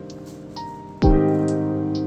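Background music: sustained electric-piano-style chords, with a deep drum hit about a second in.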